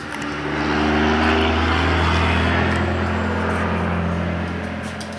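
A passing engine with a low steady hum: it swells over about the first second, holds, then slowly fades.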